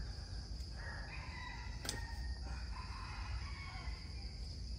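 A rooster crowing once, faintly, with a single sharp click about two seconds in.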